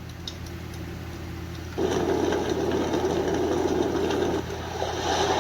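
White noise machine playing its built-in sounds and switching from one to the next: a quiet sound, then about two seconds in a louder steady noise starts, and the sound changes again near the end. A low steady hum runs underneath.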